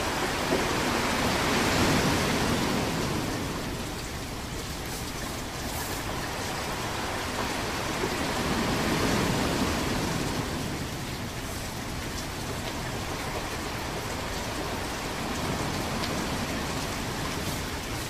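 Ocean waves washing in: a continuous rush of surf that swells louder about two seconds in and again about nine seconds in, with a smaller swell near the end.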